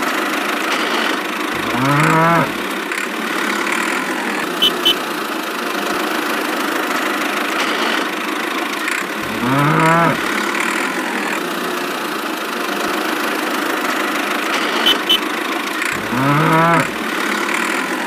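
A cow mooing three times, about seven seconds apart, each a long call that rises and falls, over a steady engine hum. A quick double click sounds twice in between.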